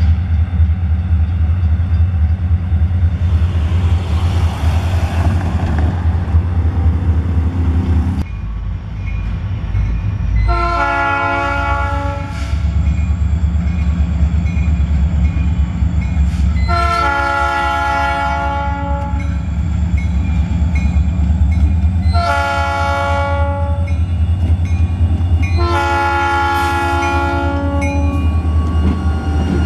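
Diesel freight locomotive sounding its multi-chime air horn in the grade-crossing pattern: two long blasts, a short one and a long one, over the steady low rumble of the diesel engines as the train draws close.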